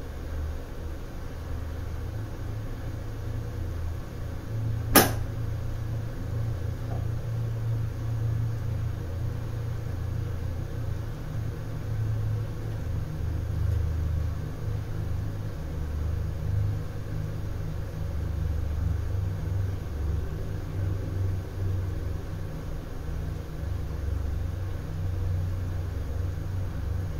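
A low, steady rumble, with a single sharp click about five seconds in.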